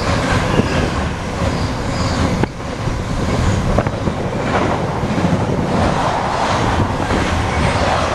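Container freight train's wagons passing close by, a steady rumble of wheels on the rails, with a couple of sharp knocks about two and a half and four seconds in.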